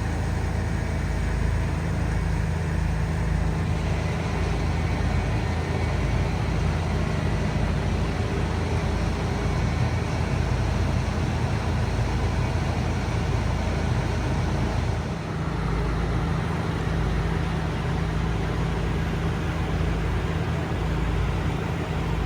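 Heavy machinery engine running steadily, a constant low hum whose tone shifts slightly about fifteen seconds in.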